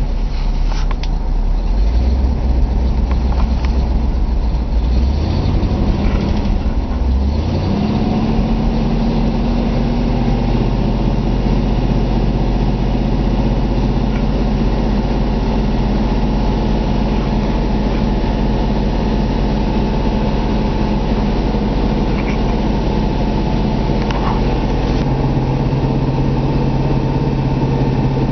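1966 Ford Thunderbird's V8 idling steadily while warming up after a cold start from months of sitting. The idle note shifts about six to eight seconds in, then holds steady.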